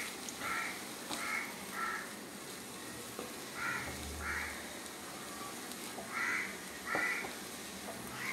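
A crow cawing repeatedly: four caws at the start, two more around the middle and two near the end. Faint stirring of food in a hot pan runs underneath.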